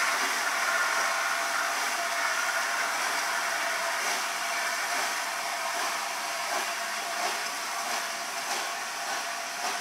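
Steam hissing from the cylinder drain cocks of LNER Peppercorn A1 Pacific steam locomotive 60163 Tornado as it pulls slowly away, a steady hiss that gradually gets fainter.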